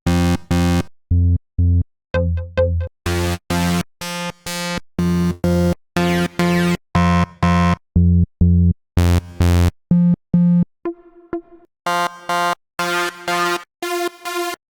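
Sylenth1 software synthesizer presets played as short, separate pitched notes with gaps between them. The tone changes every few seconds as different presets are stepped through, turning thinner and higher a little before halfway.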